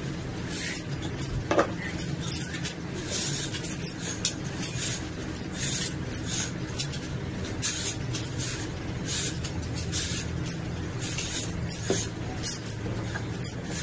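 Raw green bananas being peeled with a hand peeler and cut with a knife: a run of quick, irregular scraping and cutting clicks, over a steady low hum.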